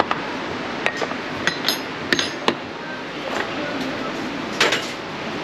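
Metal teaspoon and crockery clinking: a string of sharp clinks, several with a high ringing tone, then a short clatter near the end, over a steady café background hum.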